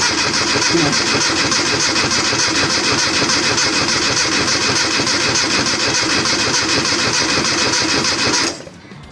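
Classic Mini's 998cc A-series engine cranking on its starter motor, turning over steadily without catching, then stopping about eight and a half seconds in. It does not fire: it gets fuel but no spark, as the owner finds.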